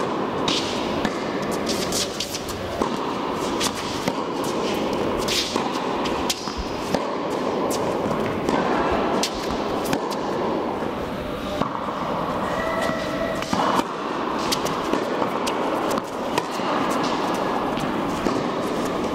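Tennis balls struck by rackets and bouncing on an indoor court during a baseline rally: irregular sharp hits, often one to two a second, in a large hall. A steady background sound runs beneath them.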